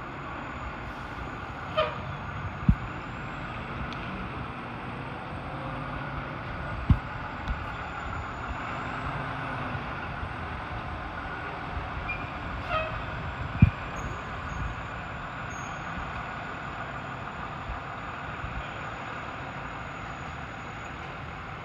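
Fire engine's diesel engine running at low speed as the truck manoeuvres and backs up, with a few brief sharp pops standing out over the steady rumble.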